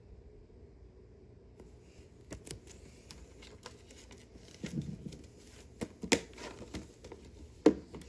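Hands handling a plastic Blu-ray case and its paper insert: crinkling rustles and light plastic clicks, with a sharp click near the end.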